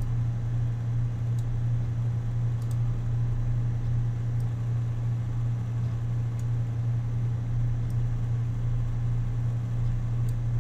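Steady low hum with a faint hiss of background noise, and a few faint, sparse clicks.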